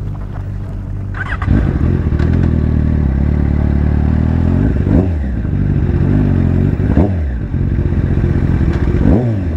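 Yamaha sport motorcycle engine running at low speed while the bike rolls along. The revs rise just over a second in, then swing up and back down three times, about two seconds apart.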